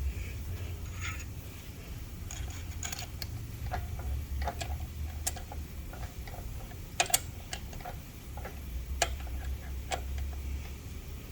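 Low hum of a seat-and-guide machine's spindle motor as it cuts out a damaged bolt hole in a cylinder head, with scattered light metallic ticks and clinks. A few sharper clicks come about seven and nine seconds in.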